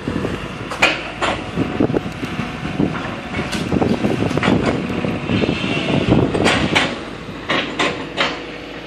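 Irregular metallic clanks and knocks over a low, rough machine rumble, the sound of an excavator working demolition debris.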